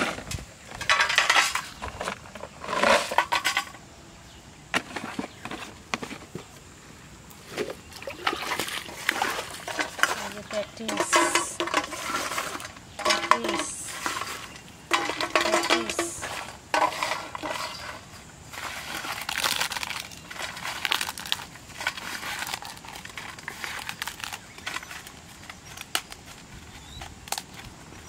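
Handling sounds of bait preparation: a plastic bottle crinkling as bait is shaken out of it, and a steel plate scraping and clinking as the bait is mixed by hand, in irregular bursts.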